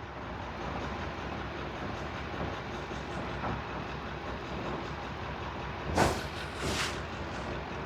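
Ford 5.4-litre V8 running at idle with a misfire, worst on cylinder 1, which has low compression, and also on cylinder 4. Two short hisses come about six seconds in.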